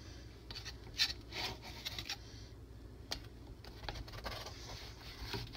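Metal spatula scraping under cookies on a round metal baking pan. It makes a series of short scrapes and light taps as the cookies are worked loose.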